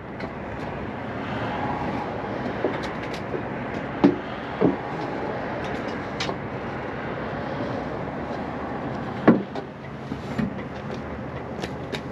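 A steady mechanical hum with several sharp knocks through it, the loudest about three-quarters of the way in.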